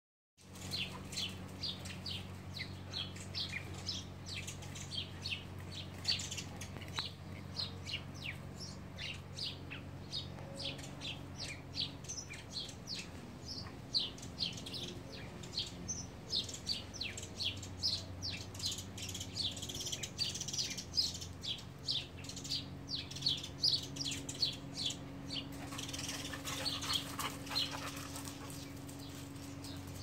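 Small birds chirping busily, a quick run of short, sharp chirps several a second that thins out near the end, over a steady low hum.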